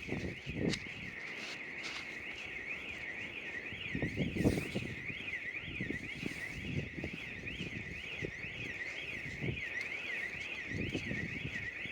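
Secom outdoor burglar-alarm siren going off: a continuous high-pitched electronic warble, sweeping rapidly up and down at about two to three sweeps a second.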